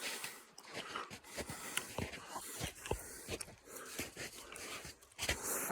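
A man's heavy, wheezy breathing as he hikes uphill, with irregular soft knocks and clicks between breaths.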